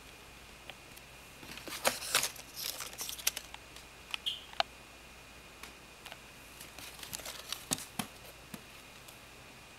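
Handling noise: crinkly rustling and scattered sharp clicks in two short flurries, the first about one and a half seconds in and the second near the end, over a faint steady high whine.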